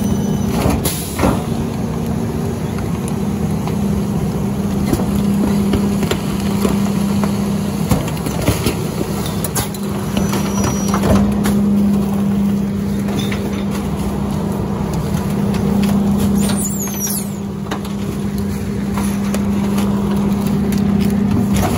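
Rear-loader garbage truck's engine held at raised, steady revs to drive the hydraulic packer, while the packer blade sweeps and compacts bags in the hopper with scattered cracks and crunches of trash. There is a brief metallic squeal about two-thirds of the way through.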